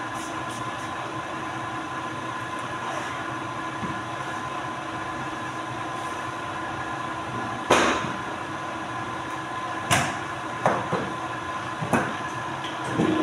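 Polar 115 guillotine paper cutter running with a steady hum holding a few fixed tones. Four sharp knocks come in the second half, about 8, 10, 11 and 12 seconds in, as heavy paper stacks are shoved and squared on its air table, which the operator says blows too weakly, leaving the stacks hard to push.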